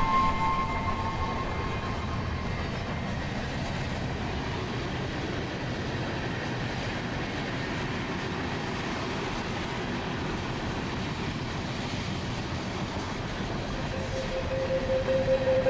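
Steady rumble of a railway carriage running on the rails, heard from inside the compartment.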